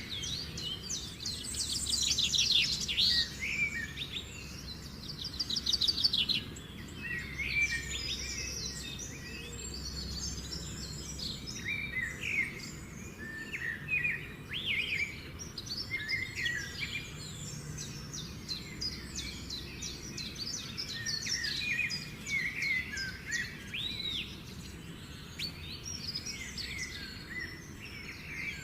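Several songbirds chirping and singing together, a busy mix of short chirps, rapid trills and whistled notes, over a low steady background rumble.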